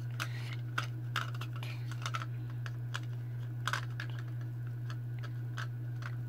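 Light, irregular clicks and taps of plastic play food and a toy plate being handled, over a steady low hum.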